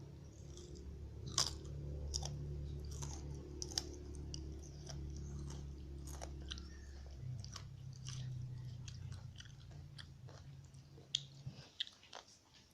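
Close-miked chewing of chicken rice, with wet mouth clicks and soft crunches at an uneven pace. A low steady hum sits underneath and stops near the end.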